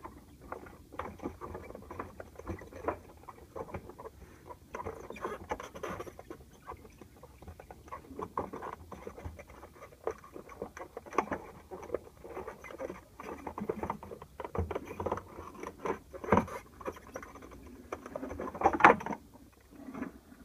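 Honda plastic fuel pump module being worked out through the fuel tank opening: irregular plastic clicks, knocks and scraping as it is tilted and handled, with a couple of louder knocks near the end.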